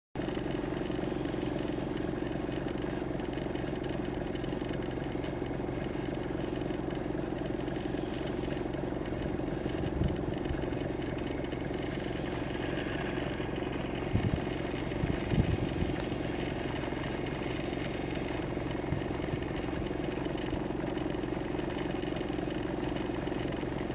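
Steady low mechanical hum, like an idling engine, with a faint constant high whine and a few soft low thumps in the middle.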